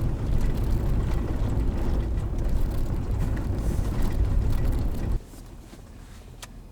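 Steady low road and engine rumble heard inside a moving Toyota Land Cruiser 100, cutting off abruptly about five seconds in to a much quieter background.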